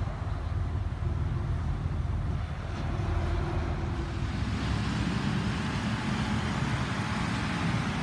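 Highway traffic with cars and semi-trailer trucks going by: a steady low rumble with tyre hiss that swells about halfway through.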